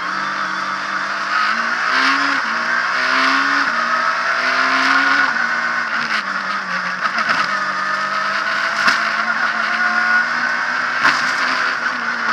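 Abarth Punto S2000 rally car's four-cylinder engine heard from inside the cockpit at racing speed, revving up and dropping back repeatedly through gear changes, with a few sharp knocks.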